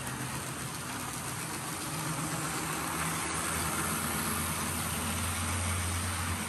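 Model freight train, led by Southern Pacific and Santa Fe diesel locomotives, running past close by: a steady low motor hum with the rushing rumble of wheels on the track. It swells a little in the middle as the locomotives pass and the cars follow.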